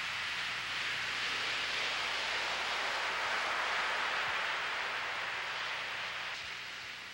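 A steady, even hiss with a faint low hum underneath, easing off slightly near the end.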